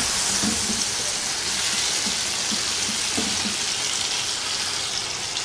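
Potato cubes and eggplant slices sizzling steadily in hot oil in a non-stick frying pan as they are stir-fried with spices.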